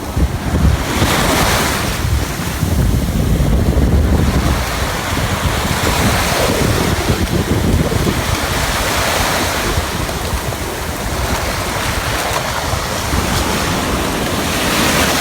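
Ocean surf breaking and washing up the beach, swelling and fading every few seconds, with wind buffeting the microphone as a steady low rumble.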